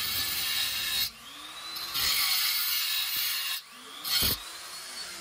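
Electric power tool at work: loud hissing cutting or grinding noise in two stretches, each time it lets go its motor whine rises and then slowly winds down in pitch, with a single thump about four seconds in.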